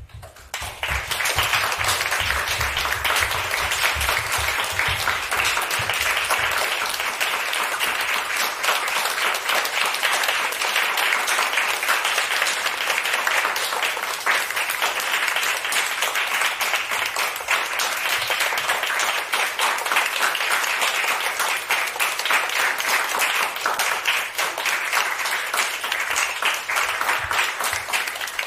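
Theatre audience applauding: a dense, steady clapping that swells in about half a second in and keeps up evenly as the dancers bow.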